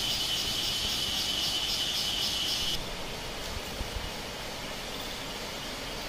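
Insects trilling steadily over the even rush of a stream flowing below; the trill cuts off about three seconds in, leaving only the running water.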